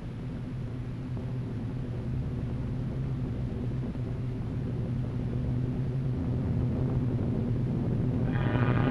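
Low, steady drone of massed aircraft engines, growing louder throughout as the formation approaches. Brighter sound, music, swells in near the end.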